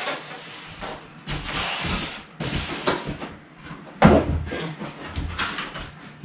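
Rustling of plastic packaging and cardboard being handled, with scattered clicks and a sharp knock about four seconds in, the loudest sound.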